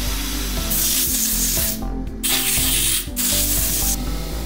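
Abrasive blast cabinet blasting grit onto a spark plug to clean it: a hiss in three bursts, each about a second long with short breaks between, over background music.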